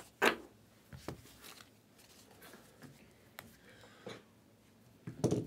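Trading cards being handled: a few short taps and rustles of cards and plastic sleeves, the loudest a sharp tap just after the start and a heavier knock near the end.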